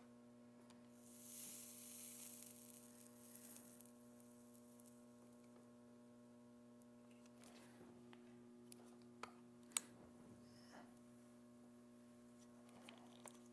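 Quiet, steady electrical hum, with a soft hiss about one to three seconds in as the soldering iron melts 60/40 rosin-core solder and flux on a copper coil connection, giving off smoke. A few faint clicks near the middle.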